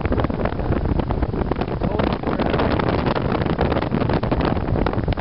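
Hurricane wind blowing hard across the microphone: a loud, continuous rumble with rapid crackling buffets throughout.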